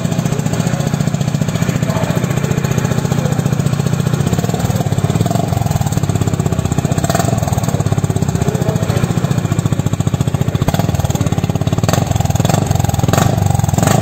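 Honda CB350RS's 350 cc air-cooled single-cylinder engine idling steadily, recorded close to the outlet of its stock muffler.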